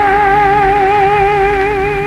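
Instrumental passage of a 1931 78 rpm tango-song recording for guitars, violin and piano. A long note is held with a slow vibrato over plucked guitar accompaniment.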